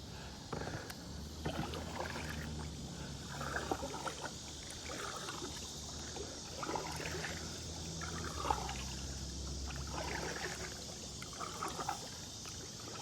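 Kayak paddle strokes in river water: the blade dips and splashes about every one and a half to two seconds, with dripping between strokes, over a faint steady low hum.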